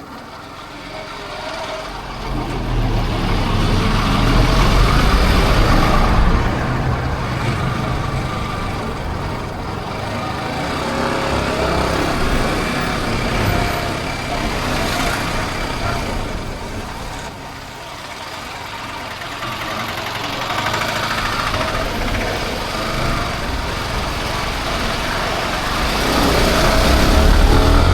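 Motorcycle engine running under way, with air rushing past the microphone; the rumble and rush swell and fade a few times as the bike speeds up and slows.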